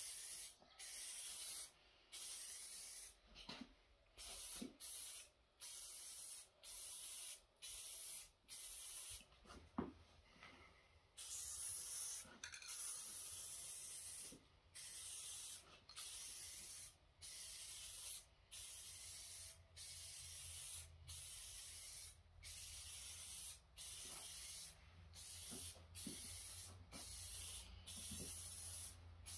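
Aerosol spray paint can hissing in short passes, about one a second with brief gaps between them, as a light first coat of gloss paint goes onto a plastic truck roof visor.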